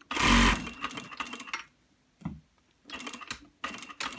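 Industrial single-needle sewing machine running a short burst of stitching on polo-shirt placket fabric, stopping about half a second in. Light irregular clicks and rustles follow, with a single knock a little past two seconds.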